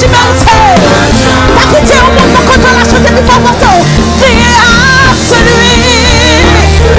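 Live worship music: a woman's lead voice sings over a band with sustained bass notes, with a wavering held note about halfway through.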